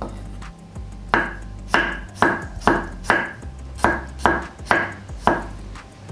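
Kitchen knife slicing garlic cloves on a wooden cutting board: about ten crisp chops, roughly two a second, each one the blade striking the board.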